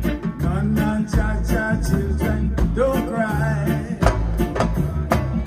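A live roots reggae band playing with a sung vocal over a steady drum beat and a deep bass line, with hand drums in the mix.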